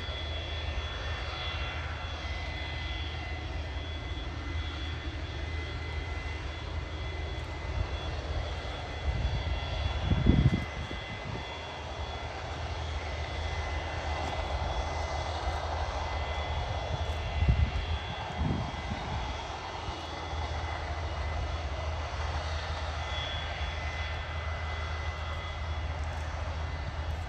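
Boeing 727's Pratt & Whitney JT8D jet engines running as the aircraft rolls along the runway: a steady low rumble with a high whine, the rushing jet noise swelling in the middle. Two loud low thumps come about ten and eighteen seconds in.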